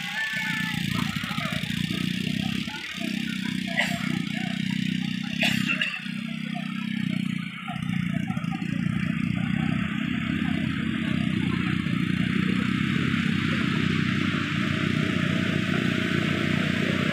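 Beach ambience: surf washing in and wind on the microphone, a steady noise throughout, with people's voices in the background and two sharp knocks, about four and five and a half seconds in.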